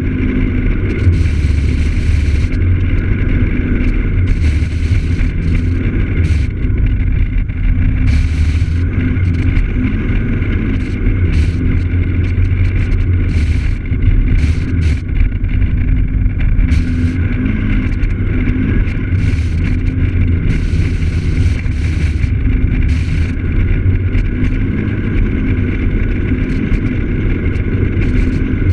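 Piaggio X9 Evo maxi-scooter's engine running at a steady cruise, heard on board, with a low rumble and short bursts of wind and road hiss coming and going every second or two.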